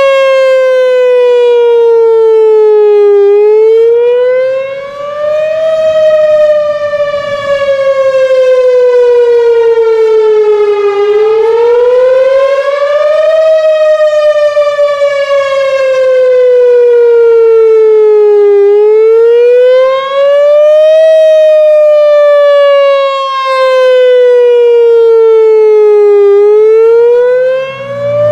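Whelen 4004 electronic outdoor warning siren sounding its wail tone on a test: one loud pitched tone that rises over about two and a half seconds and sinks slowly over about five, repeating about every seven and a half seconds.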